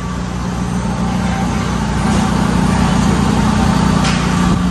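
Steady mechanical hum with one low tone over a rushing noise, growing a little louder over the first two seconds, with a couple of faint clicks.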